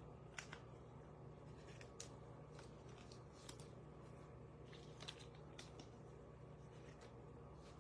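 Faint, scattered clicks and light rustles of trading cards being handled and slid against each other, over a low steady hum.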